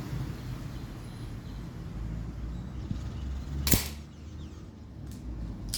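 CP1 air pistol firing a single shot about two-thirds of the way in: one sharp crack. A fainter click follows near the end.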